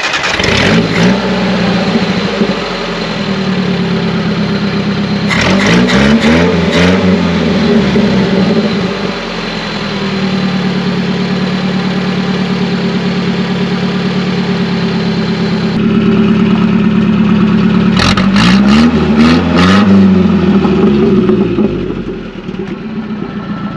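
Nissan 720 pickup's Z24 four-cylinder engine running just after start-up, revved up and back down twice, about six seconds in and again about eighteen seconds in, then settling into a low idle. It runs very smooth with good progression through the revs, its water-contaminated fuel flushed out and the engine tuned up.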